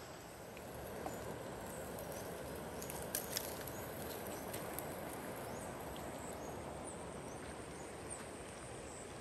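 River water flowing steadily. A few light clicks come about three seconds in, and faint short high chirps recur throughout.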